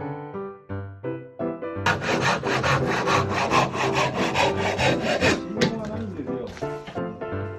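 Hand saw cutting wood in quick, even strokes, starting about two seconds in and stopping after about three and a half seconds, over background piano music.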